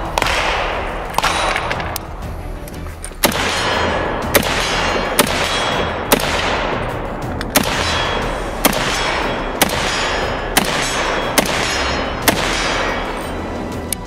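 Heckler & Koch .308 semi-automatic rifle firing a string of about a dozen single shots at a steady pace of roughly one a second, each crack followed by a short echoing tail.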